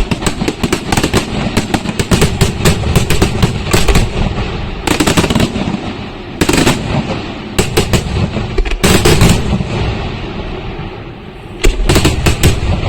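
Fireworks display: rapid strings of sharp bangs and crackles, with heavier shell bursts every second or two and a brief lull before a loud cluster of bangs near the end.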